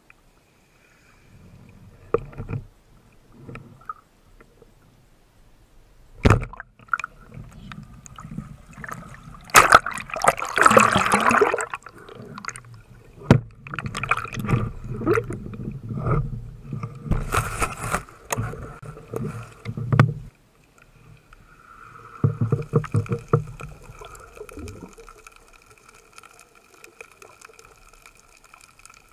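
Underwater sound from a camera housing on a spearfishing dive: water churning and rushing, with knocks and clicks from the diver and the speargun against the housing. There is a sharp crack about six seconds in, and the loudest burst of fizzing, rushing noise comes about ten to twelve seconds in.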